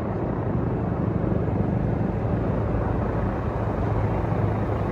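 Motor vehicle engine running at low speed, a steady low hum under outdoor noise that grows slightly louder toward the end.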